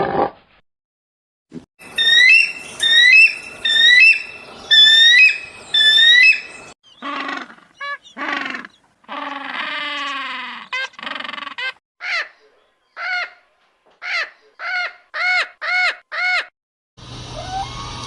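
Animal calls, bird-like chirps and squawks, in separate bursts with short gaps. It opens with a quick string of high rising chirps, then varied calls, and ends with a row of repeated arched calls that come closer together.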